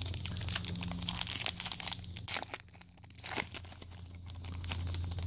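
Foil trading-card pack wrapper being crinkled and torn open by hand: a dense run of crackling over the first couple of seconds, a brief lull, then a few more crinkles.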